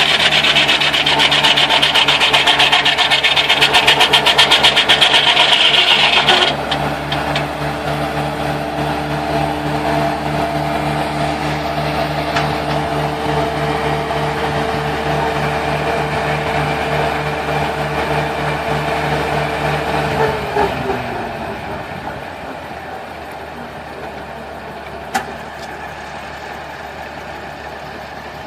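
Homemade sawmill's engine running steadily while the saw cuts through wood; the cutting noise stops about six seconds in and the engine keeps running alone. About twenty seconds in the engine's pitch falls as it winds down, leaving a quieter background with a single knock near the end.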